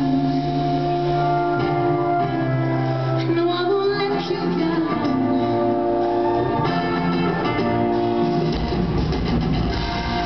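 Live pop-rock band playing with a woman singing held notes over it, in a large arena. The bass drops away from about three seconds in and comes back near the end.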